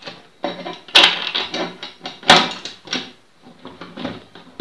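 The steel edge-guide rods of a CMT7E plunge router are being worked into its base: metal scraping and rattling, with two sharp clacks about a second and two and a third seconds in.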